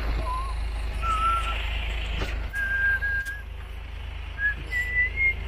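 A man whistling a run of short held notes, each a little higher than the last, over a steady low rumble.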